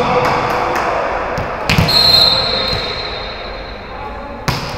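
A volleyball bounced a few times on a sports-hall floor, then a referee's whistle blown for about two and a half seconds to signal the serve, and a single sharp hit of the ball near the end as the serve is struck, over hall chatter with reverberation.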